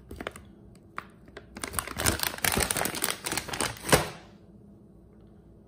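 Plastic Greenies treat pouch crinkling and rustling as a hand rummages inside it, ending in a sharp click about four seconds in.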